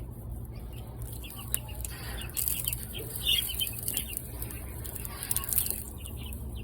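Young hens making short clucks and peeps, with light ticks and scratches from pecking at scattered freeze-dried mealworms.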